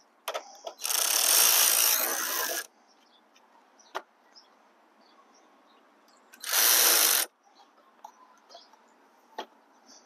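Electric ratchet running in two bursts, one of about two seconds and then a shorter one, driving in the battery hold-down bolt. A single click falls between them.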